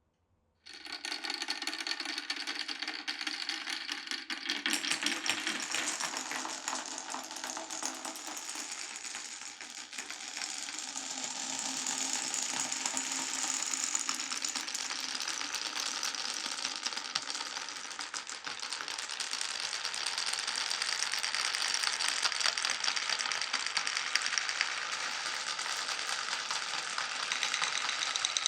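Marbles rolling and clattering down a wooden marble-run course, a dense continuous rattle of many small clicks that starts suddenly about half a second in.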